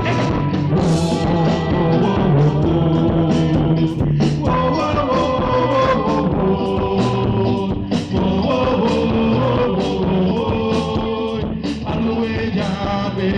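Live band music with a singer: drums keep a steady beat under guitar and bass while a voice sings over them, poorly recorded.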